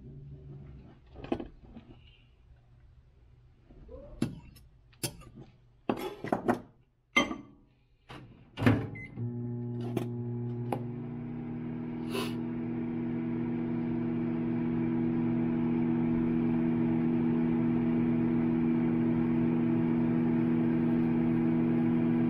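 A few sharp clicks and knocks, then about nine seconds in a microwave oven starts running with a steady hum that swells a little and holds, heating a cup of plastisol for soft plastic lures.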